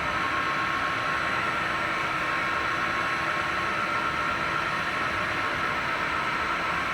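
Retrofitted CNC lathe running an automatic cutting cycle on aluminium stock: a steady, even machine noise with a faint high hum over it.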